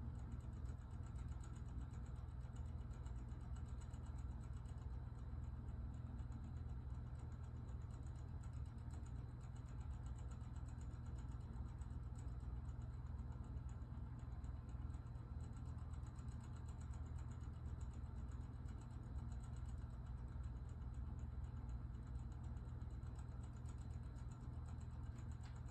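Faint, fast, even ticking from a battery quartz wall clock's movement over a steady low room hum.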